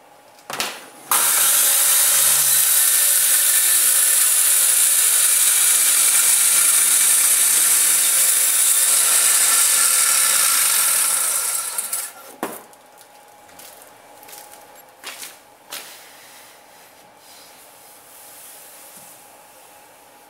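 Makita circular saw started and run through one long cut along an aluminium guide track: a loud steady high-pitched blade noise for about ten seconds after a brief first blip, winding down about twelve seconds in. A few sharp knocks follow.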